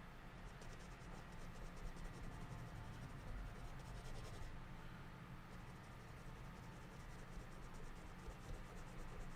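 Faint drawing strokes: a pen scratching quickly and repeatedly across the drawing surface in two long runs, with a short pause about four and a half seconds in. Low room hum underneath.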